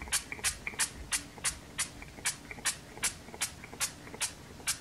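Hair colour spray bottle of Schwarzkopf BLONDME Instant Blush, spritzed over and over onto hair: a quick run of short hissing sprays, about three a second.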